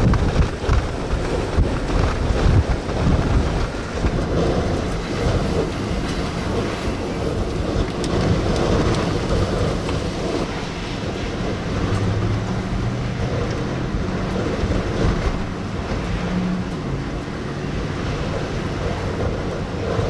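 Extreme wind blowing in strong gusts and buffeting the microphone with a heavy rumble, with scattered ticks of windblown debris.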